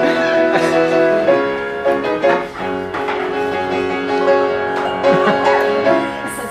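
Instrumental accompaniment of a stage song, with no singing: sustained chords that change every second or so.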